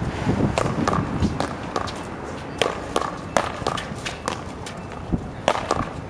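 Paddleball rally: a string of sharp smacks as the small rubber ball is struck by paddles and bounces off the wall and concrete court, with scuffing running footsteps in between.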